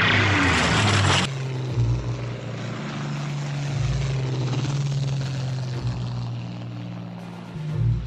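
Supermarine Spitfire's V12 piston engine droning steadily as the fighter flies low with its gear down on approach. It follows a loud rush of noise that cuts off suddenly about a second in, and the engine's pitch shifts up a little near the end.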